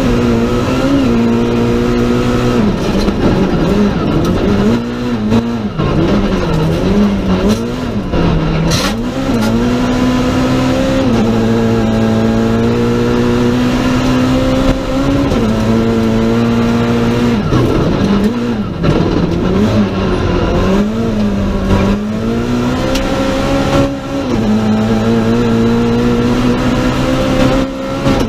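Citroën C2 R2 Max rally car's 1.6-litre four-cylinder engine at racing revs, heard from inside the cockpit. It holds high, steady revs along the straights, and its pitch drops and climbs again several times as the driver lifts and shifts gears for corners, over continuous tyre and road noise.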